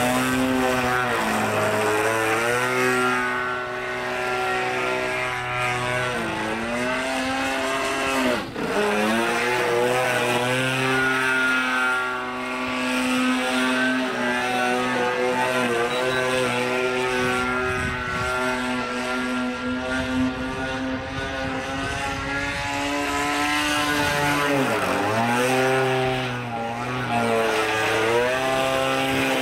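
Petrol engine and propeller of a large radio-controlled aerobatic plane running in flight. Its note drops and swells again several times as the plane works through its manoeuvres.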